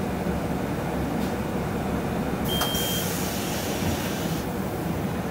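City bus rear doors opening: a click and a short high beep about halfway through, with a hiss lasting about two seconds, over the steady low hum of the idling bus.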